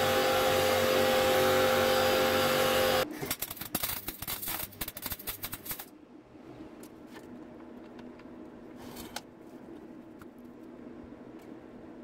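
A loud, steady buzz for about three seconds, then about three seconds of dense crackling from a MIG welder tacking steel cutlery. After that come only a few faint clicks.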